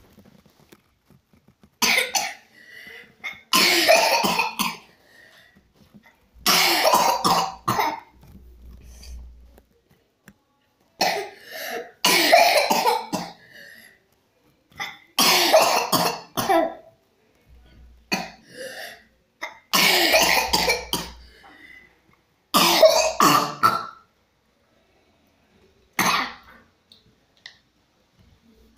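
Coughing from whooping cough (pertussis): about eight fits of harsh, rapid coughs in quick succession, each a second or two long, a few seconds apart, with fainter breathing sounds between them.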